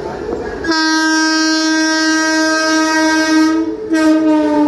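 Indian Railways electric locomotive horn: one long steady blast starting about a second in, a brief break, then a second blast at a slightly lower pitch.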